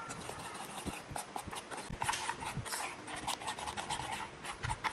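A spoon stirring thick flour-and-water batter in a bowl: repeated wet, squelching scrapes, several strokes a second, with small clicks where the spoon knocks the side.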